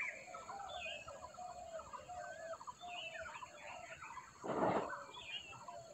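Water poured from a bowl into a kadai of fried potatoes and masala, heard as a short splashing rush about four and a half seconds in. Small birds twitter steadily in the background.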